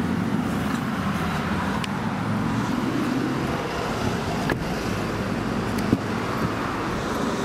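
Steady rumble of road traffic, with a few light clicks and knocks from handling; the sharpest comes about six seconds in.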